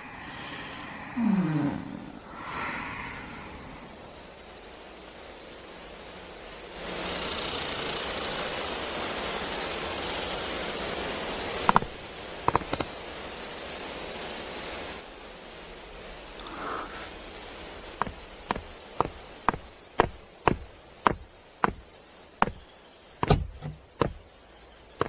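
Crickets chirping steadily in a fast pulsing trill. A broad hiss rises over them for several seconds in the middle. Near the end comes a run of evenly spaced footsteps, about two a second.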